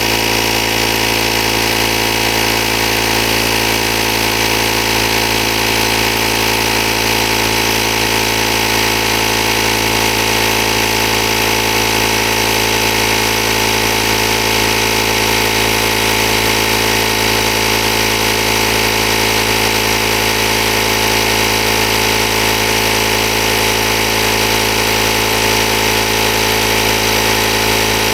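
Ryobi cordless tyre inflator's compressor running steadily, pumping a rear tyre up toward its 60 psi set pressure.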